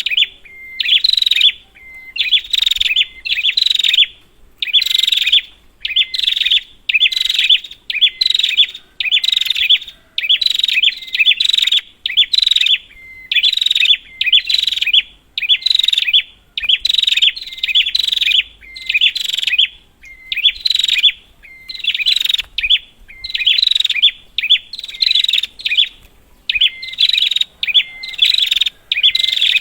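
Prinia (prenjak) calling. Loud, chattering phrases of under a second each repeat about once a second with short gaps between them, each opening with a brief steady note.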